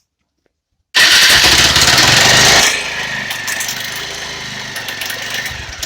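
A motorcycle engine starts about a second in, loud for under two seconds, then settles to a steadier, quieter run.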